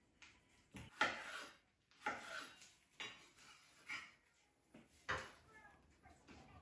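Kitchen knife knocking on a wooden cutting board as ripe mango is sliced, with pieces set down on a ceramic plate: about five sharp knocks roughly a second apart.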